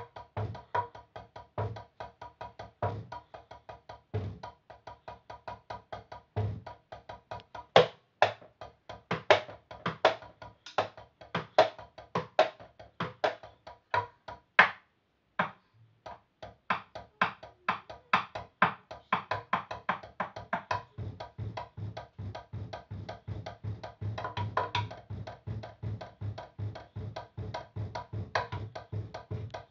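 Drumsticks played fast on a Meinl drum practice pad: rapid strokes and rolls, breaking off briefly about halfway through, then picking up again.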